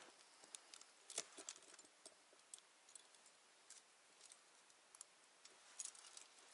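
Near silence with faint, irregular small clicks and ticks, the loudest about a second in, from gloved hands handling something.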